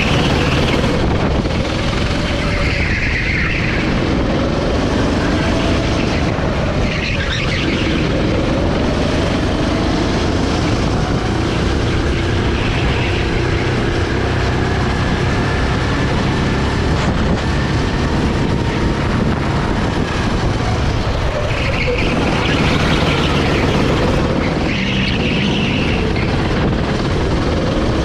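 Sodi SR5 rental go-kart's 390cc single-cylinder four-stroke engine running hard from onboard, its pitch dropping several times as the driver lifts off for corners and climbing again on the throttle.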